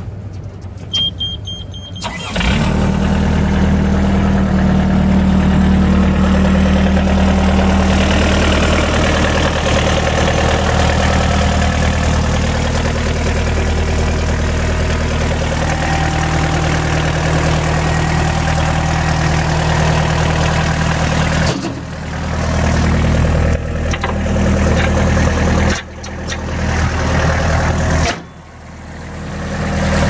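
Mustang 2054 skid steer's engine starting after a short beep, catching about two seconds in and then idling steadily. The sound drops briefly a few times near the end.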